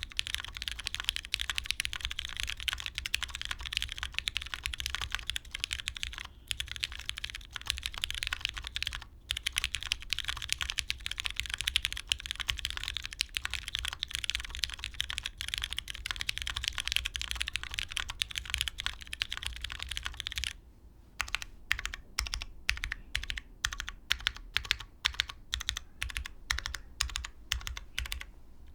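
Mode Tempo mechanical keyboard with lubed MX Brown tactile switches on an FR4 plate, typed on quickly and continuously. About twenty seconds in, the fast typing gives way to slower, separate keystrokes, several a second.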